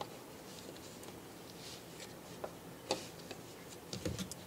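Hands working masking tape onto a frosted 3D-printed plastic part: faint rustling of the tape with a few light clicks and taps of fingers on the plastic, a little cluster of them near the end.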